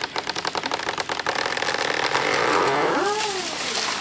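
Engine running with a fast, even beat, then a rushing noise that swells about two seconds in as the felled tree comes down, with a short shout near the end.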